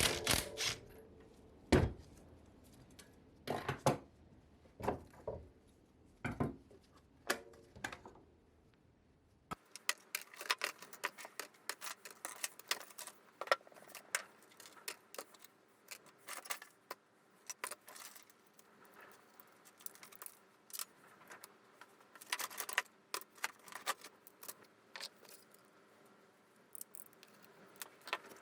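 Hand tools and small metal bicycle parts clicking and clinking as they are handled and worked. The knocks are sparse at first; after a cut about a third of the way in, the clicking becomes rapid and almost continuous.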